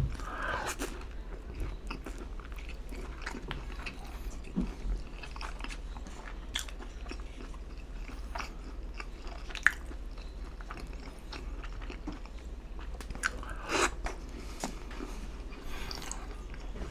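Biting into and chewing a breaded fried mozzarella stick, the crust crunching, with scattered short clicks and wet mouth sounds. The loudest are a sharp click about ten seconds in and a burst of crunching near fourteen seconds.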